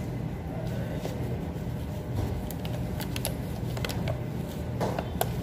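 Steady low hum of a large indoor dining hall, with a few light clicks and taps from things handled at the table.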